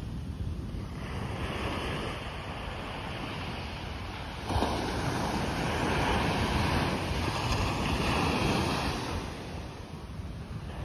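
Waves breaking and washing up on a sandy beach, with wind buffeting the microphone. The surf grows louder about four and a half seconds in and eases again near the end.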